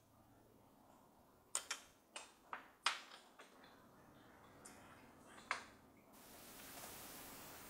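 Chopsticks clicking against porcelain bowls and dishes during a meal: a quick run of about five sharp clicks, then one more a few seconds later, followed by a steady hiss near the end.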